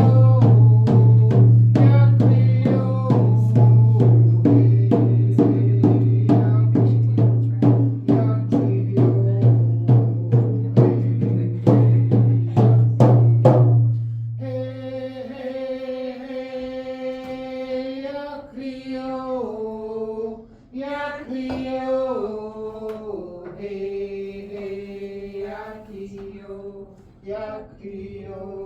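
Hand drum beaten in a steady beat of about two strikes a second under a chanted song. About halfway through the drumming stops and the singing voice carries on alone, stepping down in pitch from phrase to phrase.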